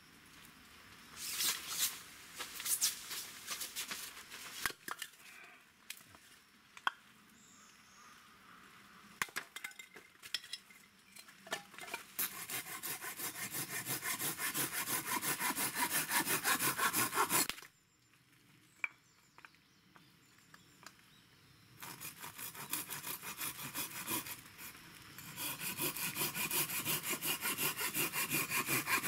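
Hand saw cutting small pieces of wood on a chopping block, in two long runs of quick back-and-forth strokes in the second half. Before them there are scattered knocks and clatter of the wood being handled.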